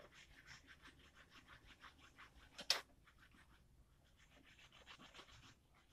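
Faint scraping of a wooden spoon stirring coffee in an aluminium saucepan, several strokes a second, then one sharp click nearly three seconds in.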